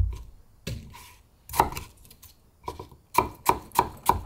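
Kitchen knife chopping pear on a cutting board: sharp single knocks of the blade on the board, a few spaced out, then a quicker run of about four, roughly three a second, near the end.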